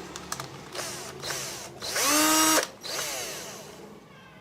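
Skil 14.4 V cordless drill run in short trigger bursts, powered by a converted lithium-ion 18650 pack. Its motor whine rises as it spins up, holds briefly about two seconds in, and falls away as it winds down.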